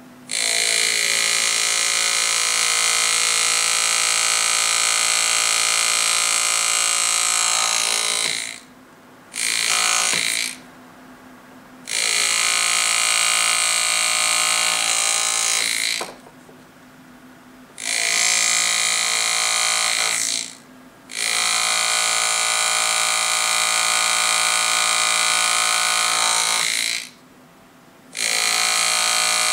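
A powered engraving handpiece driving a graver into a gold signet ring to bright-cut the engraved letters. Its motor buzzes at one steady pitch in six spells of one to eight seconds, stopping and starting between them.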